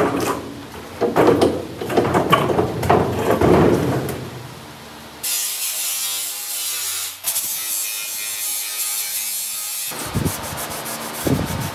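Irregular knocks and clatter of the steel Karmann Ghia chassis floor pan being handled on its stand. About five seconds in, this gives way to the dry, hissing scrub of an abrasive scuff pad rubbed back and forth over the painted steel floor pan to key it.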